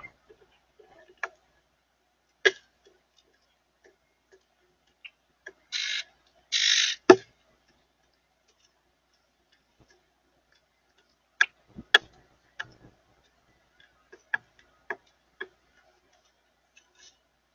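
Scattered sharp taps and clicks, typical of birds pecking and cracking seed at a feeder, with a quicker run of taps near the end. About six seconds in come two short harsh hissing bursts, then the loudest knock.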